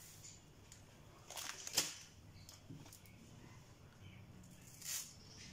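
A few light clicks and taps of a metal spoon against a glass mixing bowl as chocolate sprinkles are spooned into batter, the sharpest click a little under two seconds in, another near the end, over quiet room tone.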